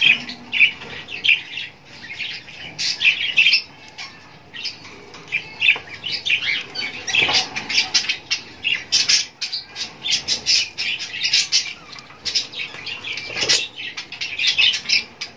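A small flock of budgerigars chattering with quick, short chirps and squawks, with wings fluttering in bursts as they bathe and feed among wet purslane leaves.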